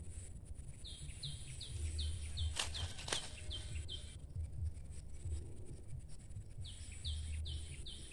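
A bird calling a quick series of short, repeated high notes, about three a second, in two runs. Under it there is a steady low rumble, and two sharp clicks come near the middle.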